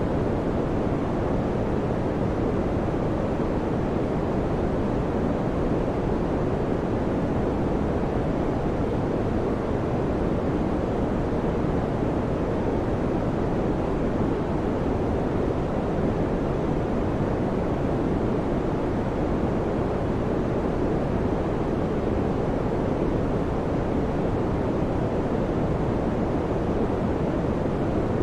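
Electric fan running steadily: an even, low whoosh of moving air with no change in level or pitch.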